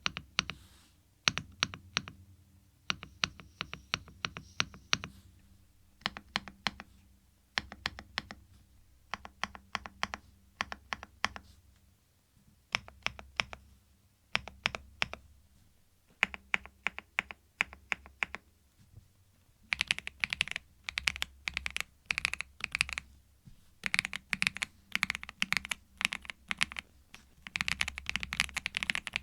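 Typing test on a Thinkway TV88 tenkeyless mechanical keyboard with Kailh switches: runs of keystrokes with short pauses between them. From about twenty seconds in the typing gets faster and brighter.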